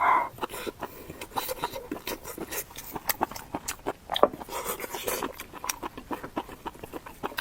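Close-miked chewing and mouth sounds of someone eating: a quick, irregular run of wet clicks and smacks.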